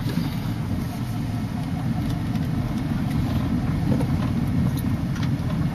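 Car driving slowly on an unpaved road, heard from inside the cabin: a steady low rumble of engine and tyres.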